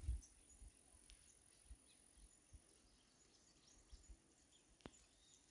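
Near silence with faint, scattered distant bird chirps, a faint steady high tone behind them. A low thump right at the start and a single sharp click near the end.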